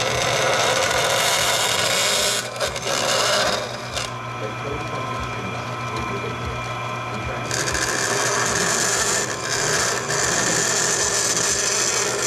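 Bandsaw blade cutting thin aluminum sheet, with the saw's motor humming steadily underneath. The cutting comes in two spells, one at the start and one from about two-thirds in, with a stretch in the middle where the saw only runs without cutting.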